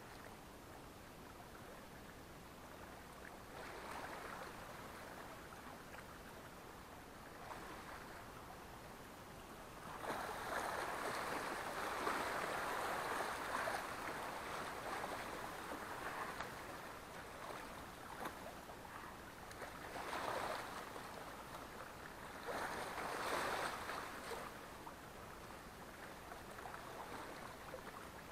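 Sea water washing against the shore in small waves, coming in swells every few seconds, with the longest and loudest wash about ten to fourteen seconds in.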